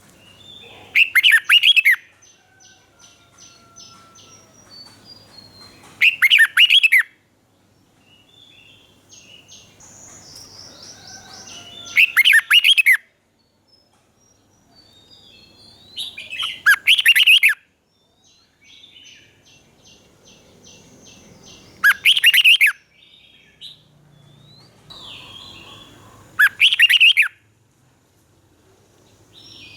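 Red-whiskered bulbul singing: a short, loud, rich phrase repeated six times, about every five seconds, with quieter chirps and rapid trills between.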